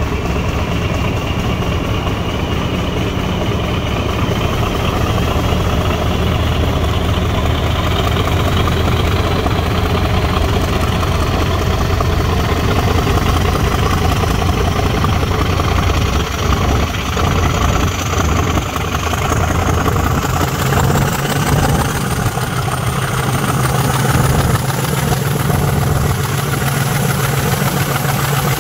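Class 50 diesel locomotive's English Electric 16-cylinder engine working hard as the train pulls away, the thrash heard from a carriage window behind it. A whine rises steadily in pitch as the train gathers speed, and the engine note steps up about two-thirds of the way through.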